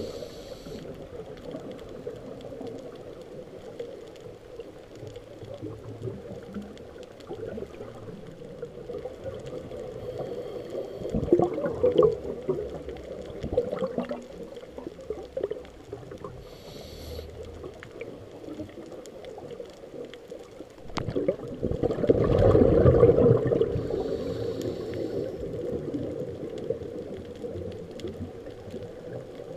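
Scuba breathing heard underwater through a regulator: a faint hiss on each inhale and a rush of exhaled bubbles, loudest about 11 seconds in and again from about 21 to 24 seconds in, over a steady underwater hum.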